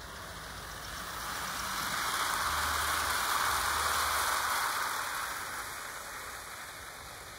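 OO gauge model train with a long rake of Pullman coaches running past on the garden track: a steady rushing rattle of wheels on rail that swells as the train comes closest, about three to four seconds in, and then fades as it moves away.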